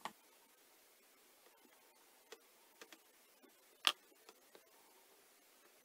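A few scattered light clicks and taps of small craft pieces being handled on a cutting mat, the sharpest just under four seconds in, over a quiet room background.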